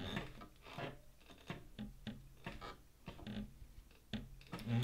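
Juki 1541 walking-foot industrial sewing machine turned slowly by hand at the handwheel, stitching through leather: a string of irregular light clicks and knocks from the needle and feed mechanism, several a second at most, over a faint low hum.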